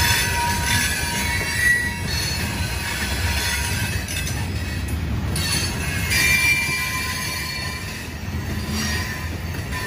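Loaded coal hopper cars of a freight train rolling past, a continuous low rumble of wheels on rail. Brief high-pitched wheel squeals come about two seconds in and again about six seconds in.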